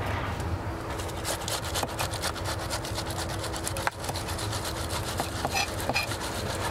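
Food being grated on a metal box grater in quick, repeated rasping strokes.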